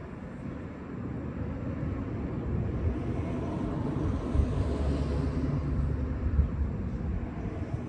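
Engine rumble of a passing motor vehicle, swelling to a peak about five seconds in and then fading.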